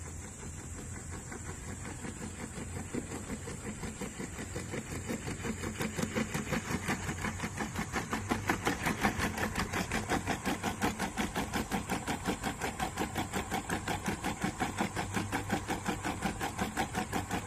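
Quadruped robot dog running: a rapid, even beat of footfalls and leg-motor noise, about five to six a second, over a steady high whine. It grows louder over the first several seconds, then holds steady.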